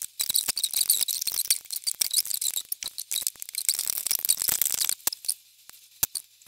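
Rubber bands being hooked and pulled over the pegs of a rubber-band loom, a rapid dense run of small clicks and squeaks that stops about five seconds in, leaving a few scattered clicks.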